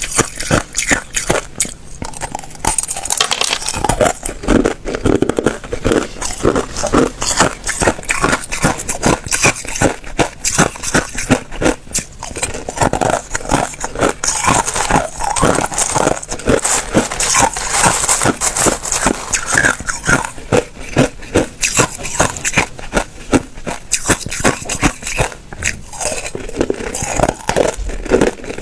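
Hard ice cubes being bitten and chewed, a dense, continuous run of sharp cracks and crunches.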